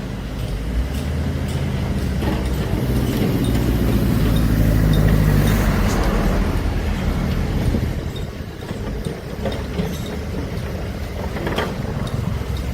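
Large diesel engine of heavy earthmoving equipment running under load, swelling in the middle and easing off near the end, with a few sharp metallic knocks.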